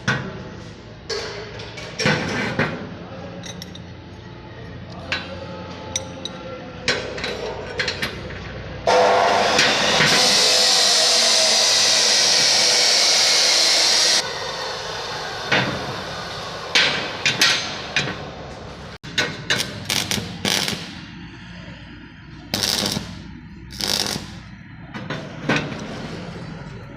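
Metalworking on a steel frame: scattered hammer knocks and clanks on metal, and about nine seconds in, a loud steady noise from a metalworking tool that runs for about five seconds and cuts off abruptly.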